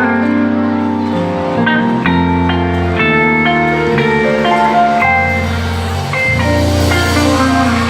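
Instrumental music: guitar notes over a bass line that changes every second or two.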